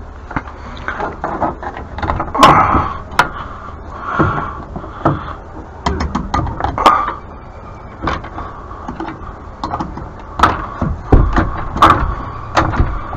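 Irregular knocks, clicks and scrapes of shed parts being handled and shifted into place, with a few louder bangs.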